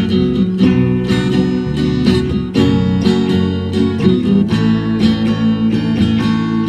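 Acoustic guitar strummed in a steady rhythm, playing an instrumental passage of a song with no singing.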